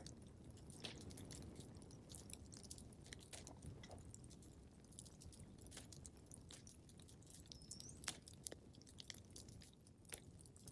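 Wood fire crackling in a fireplace: irregular sharp snaps and pops over a soft low rumble, with a few louder pops about eight and ten seconds in.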